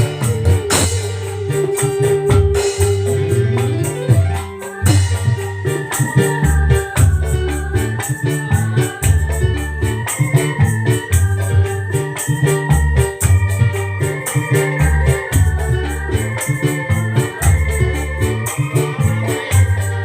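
Loud music played through a sound system during a sound check: heavy pulsing bass, an organ-like keyboard melody and a fast steady beat.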